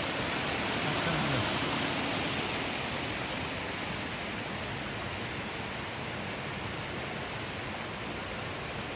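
Steady rush of a small forest stream flowing over rocks.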